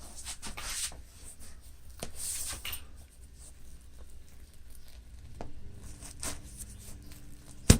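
Soft rustling and scraping of hands and objects being handled, with a faint steady hum starting partway through and one sharp click near the end.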